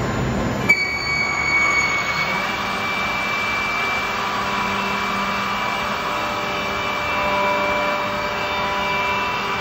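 Andreoni Standard 12 multi-spindle copy-milling machine (pantograph) running, its router spindles giving a steady high-pitched whine over the noise of the cutters milling wooden blocks. A single sharp knock comes a little under a second in.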